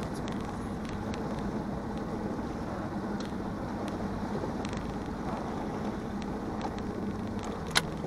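Small fishing boat under way: a steady low motor hum with wind and water noise. A single sharp click comes near the end.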